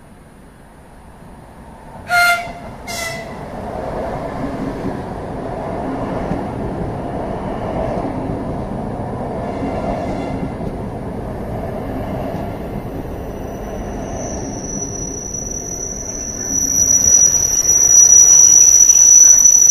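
Aeroexpress ESh2 double-decker electric train sounding two short horn blasts as it approaches, then rumbling past along the platform. Near the end a loud, steady, high-pitched squeal rises over the train noise.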